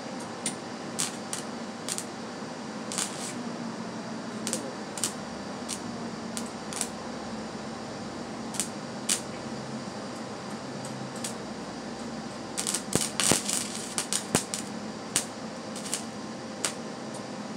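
Wire-feed welder arc crackling and popping in irregular bursts over a steady hum, the crackle thickest about two-thirds of the way through.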